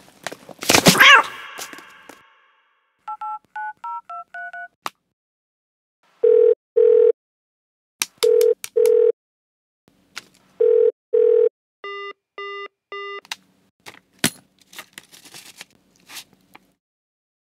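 Mobile phone keypad tones as six digits are dialed, each a short two-note beep, followed by three double-ring ringback tones, then three short beeps and a click. A loud rustling sweep comes about a second in, before the dialing.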